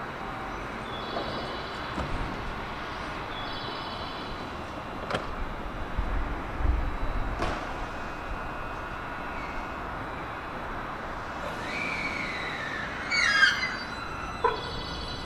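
Steady station-platform hum beside a JR West 223 series electric train standing at the platform, with a few short beeping tones, a couple of sharp clicks, and a falling whistle-like tone near the end.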